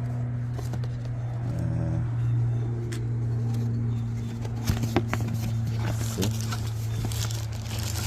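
Clicks and crinkly rustling as a carbon typewriter ribbon is handled to be shown, over a steady low hum. The clicks start about halfway through, and the rustling is busiest near the end.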